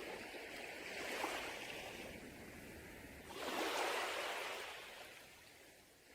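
Sea waves washing up a beach in two surges, the second and louder one about three and a half seconds in, fading away near the end.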